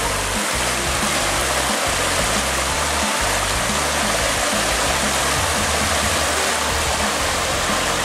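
Mountain stream rushing steadily over small rock cascades.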